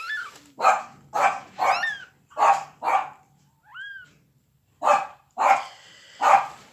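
A dog barking in a run of about eight short, loud barks in two groups, with a second's pause between them. Young Maine Coon kittens give a few thin, high mews that rise and fall between the barks.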